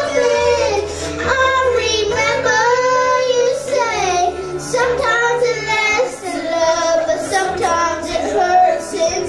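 A young girl singing into a handheld microphone over a backing track, holding long wavering notes above a steady bass line.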